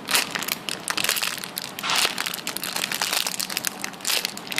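Crinkling and crackling as a squishy toy and its label are handled and turned close to the microphone, with louder bursts of rustling about two seconds in and near the end.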